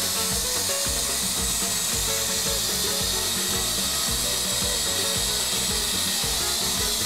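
Attop YD711 Avatar RC helicopter in flight: its small electric motors and rotors run with a steady high-pitched whir that holds an even level throughout.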